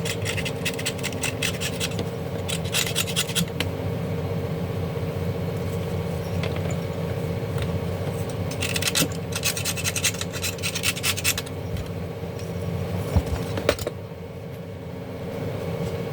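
Repeated quick scratching and scraping on the parts of an opened garment steamer, in three spells, with a couple of sharp knocks near the end, over a steady background hum.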